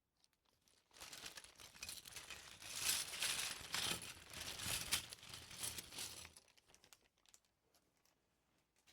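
Plastic LEGO parts bag crinkling as it is handled, a dense crackle that starts about a second in and dies away after about six seconds, followed by a few faint ticks.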